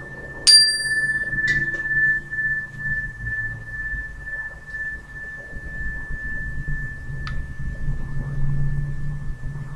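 Tuning fork ringing with one steady high tone, struck again about half a second in, when brighter metallic overtones flash and die away within a second, then tapped lightly once more a second later. A single sharp click comes near the middle.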